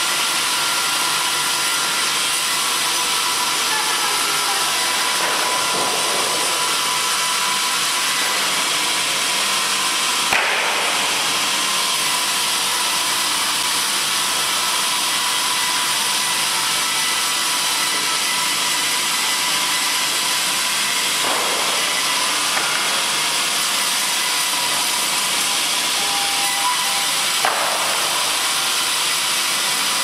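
Fimaksan multi-rip circular saw, a stack of blades on one vertical arbor, ripping a log lengthwise: a steady high-pitched whine and hiss of cutting, with a sharp knock about ten seconds in.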